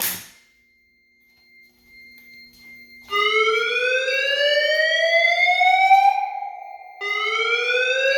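Voice-evacuation fire alarm speaker sounding the slow whoop evacuation tone: a rising sweep of about three seconds that starts about three seconds in and repeats near the end, with a faint steady high tone beneath. The alarm has been set off by a pull station test.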